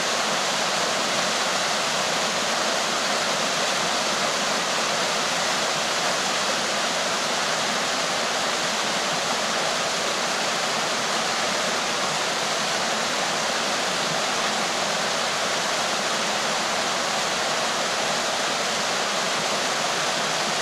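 Small mountain-stream waterfall cascading over mossy rock: a steady, even rush of falling water, more hiss than low rumble.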